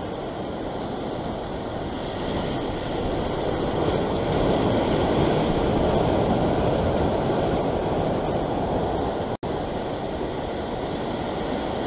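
Ocean surf washing against a rock ledge: a steady rushing noise that swells over several seconds and then eases off.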